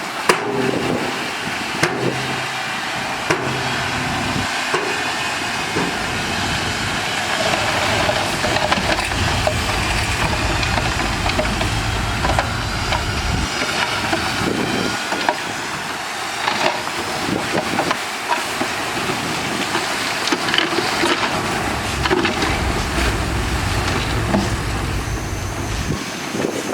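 Ten-wheel dump truck's diesel engine running under a steady rushing hiss, with scattered clanks and knocks.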